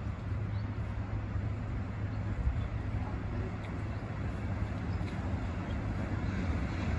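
Steady low vehicle rumble with a constant deep hum underneath, holding level throughout.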